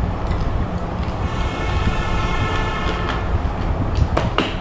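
Steady rumbling noise, with a few sharp clicks near the end as the plastic lid is worked off a small metal food container.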